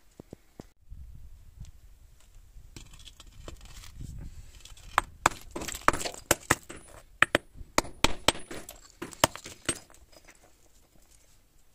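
Fired clay crucible knocked against hard ground and cracked open to free the cast wootz steel ingot: about a dozen sharp knocks and clinks of breaking ceramic and falling shards, coming fast from about five seconds in until near the end.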